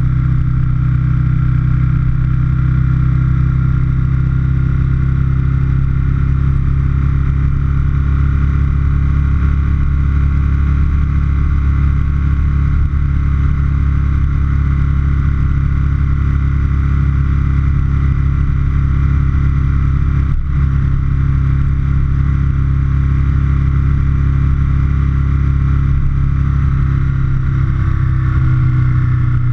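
2004 Aprilia Futura's 1000 cc V-twin engine running steadily at cruising speed, heard close from the tank.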